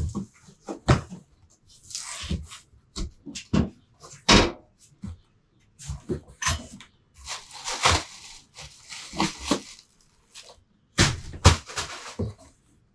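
Cardboard shipping box being opened and handled: flaps knocking and scraping, with bursts of rustling as the contents are moved about inside.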